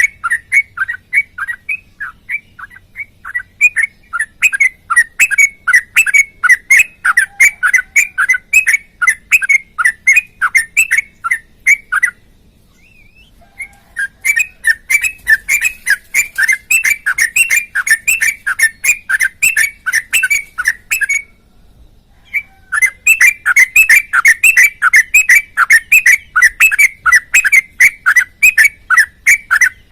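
Yellow-vented bulbul (trucukan) singing long rapid runs of repeated whistled notes, about three to four a second. The song breaks off twice, about twelve seconds in and again near twenty-one seconds, each time for a second or two, then starts again.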